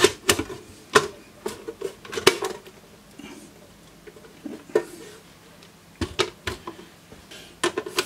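Sharp clicks and knocks of an Agilent E3646A bench power supply's metal chassis and plastic-trimmed case being handled as its cover is put back on and the unit is set down. A quick cluster of clicks comes in the first couple of seconds, then a quieter stretch, then a few more single knocks near the end.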